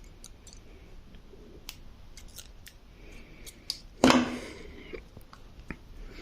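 Small metal parts and tools being handled, with light clicks and taps. About four seconds in comes one louder sharp knock that rings briefly.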